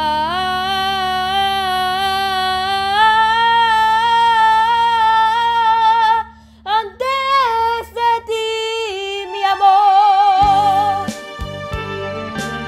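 A young girl singing a long held note with vibrato, then a few short rising and falling runs, over recorded backing music. Her voice stops about ten seconds in, and the backing carries on with plucked notes.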